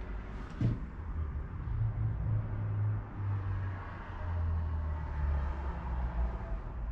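The bus's 6.9-litre six-cylinder turbo diesel idling, a steady low rumble heard from the driver's cab. There is a single light knock about half a second in.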